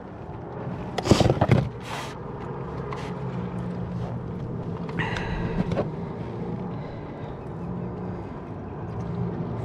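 Hands and gear knocking and rubbing against a plastic fishing kayak, loudest in a cluster of knocks about a second in, over a steady low hum from the kayak's MotorGuide Xi3 trolling motor.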